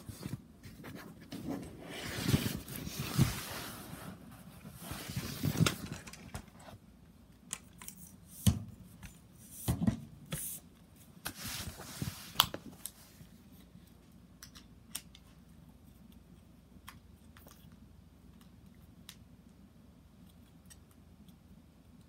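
Handling noises: irregular rustling and scraping with sharp clicks, busiest for the first dozen seconds, then thinning to a few faint clicks.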